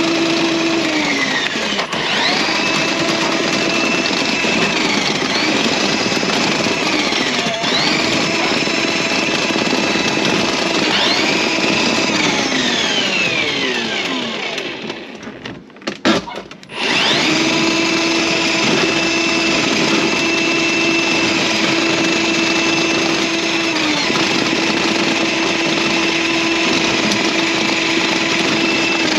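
Battery-powered Milwaukee drain snake motor running as it clears a drain clogged with hair. The motor slows and speeds up again several times, stops briefly about halfway, then restarts and runs steadily.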